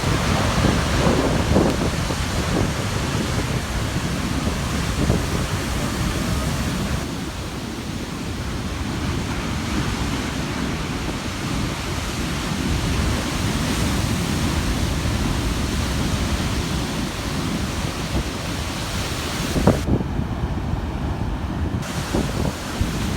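Large ocean waves crashing and churning on a rocky shore at high tide, a continuous heavy wash with a sharper crash about twenty seconds in. Strong wind buffets the microphone, adding a low rumble.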